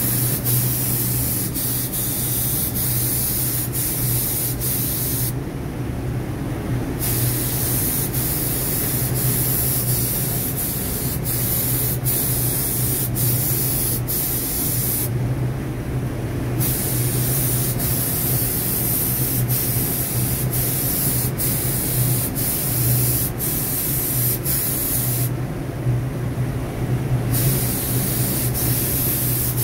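Paint spray gun hissing steadily as yellow paint is sprayed onto hanging parts, with three short pauses of a second or two, about ten seconds apart, when the trigger is let off. A steady low hum runs underneath.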